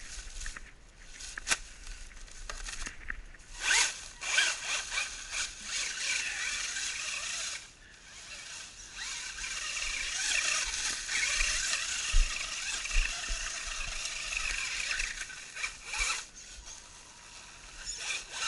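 Brushed electric motor of a small 1/10 FS Racing Marauder RC monster truck, running on a 3S LiPo, whining on and off as it is driven, its tyres churning through deep dry leaves with a crackling rustle.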